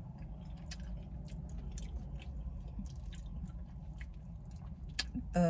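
Close-up chewing of a soft mouthful of mashed potatoes, gravy, corn, cheese and chicken pieces, with many small wet mouth clicks over a low steady hum.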